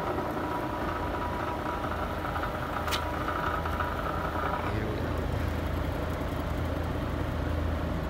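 A 1955 Westinghouse casement air conditioner running with its fan on high: a steady motor hum with a thin whine that drops out a little before halfway. One sharp click about three seconds in as a control on the panel is turned.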